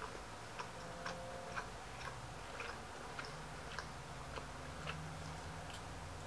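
A clock ticking faintly and regularly, about two ticks a second, over a low steady room hum.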